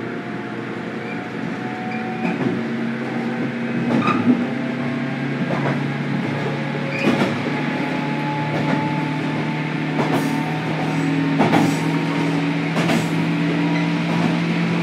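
Running sound inside a JR 103-series (103-1500) electric motor car: a steady low hum from the traction motors and gearing, its lowest tones rising slowly in pitch through the second half. Several sharp knocks from the wheels on the track are spread through it.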